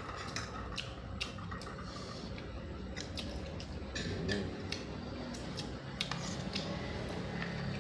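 Giant blood cockle shells being pried open by hand and eaten: scattered small shell clicks with wet squishing sounds.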